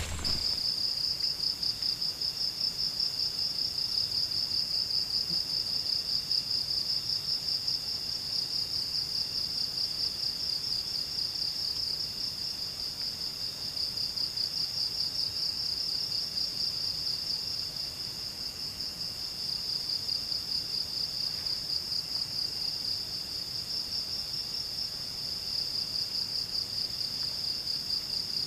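Insects trilling steadily at a high pitch in a fast, even pulse, with fainter insect calls sounding lower beneath them.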